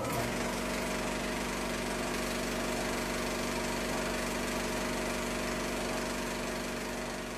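A steady droning hum over a broad hiss, even in level throughout and beginning to fade near the end.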